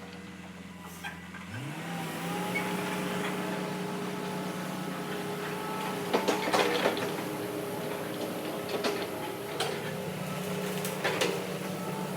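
Hitachi excavator's diesel engine running. About a second and a half in it speeds up, then holds a steady pitch, with a few sharp metallic knocks over it.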